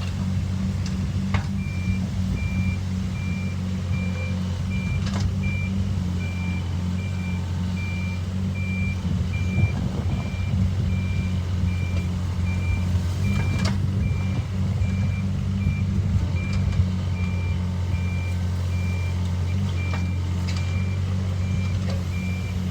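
Backhoe's diesel engine running steadily while its reversing alarm beeps over and over as it backs up, with a few sharp clunks from the machine as it works.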